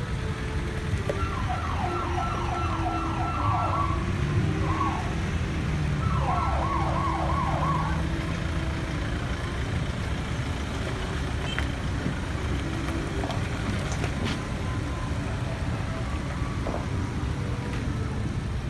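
Vehicle siren giving two short runs of quick, repeated falling yelps, about two to three a second, over the steady low rumble of vehicle engines.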